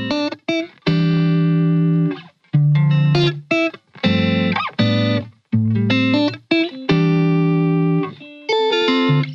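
Background music: sustained pitched chords in phrases of about a second each, separated by brief breaks.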